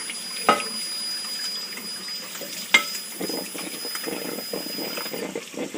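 Water running from a kitchen tap into a sink, with two sharp clinks, one about half a second in and one nearly three seconds in.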